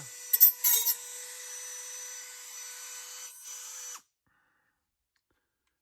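A power tool with a cutoff wheel is running and cutting into a metal bracket. There are two loud, harsh bites in the first second, then a steady high-pitched whine that cuts off suddenly about four seconds in.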